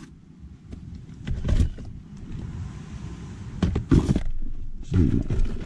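Fishing gear being handled in a car's back seat: knocks and clatters of rods and a bucket being moved, a couple about a second and a half in and the loudest pair about four seconds in, over a low rumble of handling noise.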